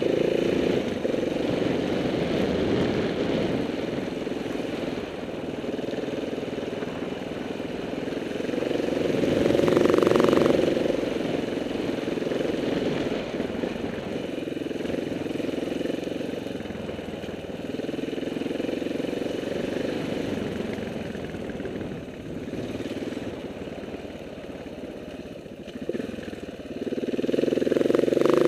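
KTM 690 Enduro R's single-cylinder engine running as the bike rides a dirt trail. It swells louder with throttle about a third of the way in and again near the end, with wind and trail noise over the engine.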